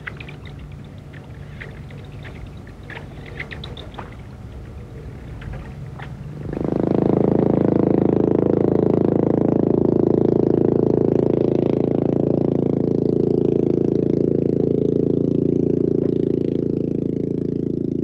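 Long-tail boat engine running steadily. It comes in suddenly about six seconds in, after a quieter stretch with a few faint ticks, and stays the loudest sound from then on.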